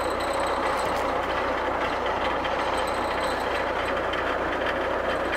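Engine of an E303 self-propelled mower running steadily close by, an even mechanical drone with a low hum that does not change.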